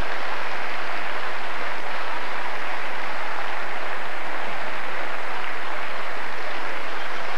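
Stand-up comedy audience applauding steadily.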